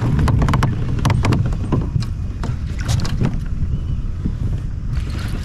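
Steady low wind rumble on the microphone, with irregular sharp clicks and knocks while a hooked bass is fought and reeled in on a baitcasting rod.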